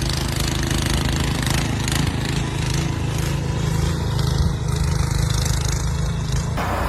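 A motor running steadily under a loud rushing noise, which changes suddenly near the end.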